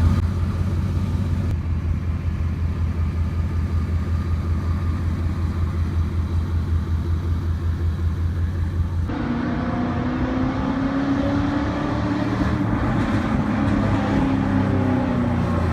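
A vehicle engine running: a steady low drone for most of the first part, then after an abrupt change about nine seconds in, the engine note rises and falls as it accelerates and eases off.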